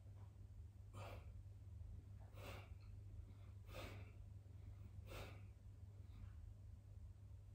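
A man's faint, forceful breaths as he does push-ups: four exhalations, about one every second and a half.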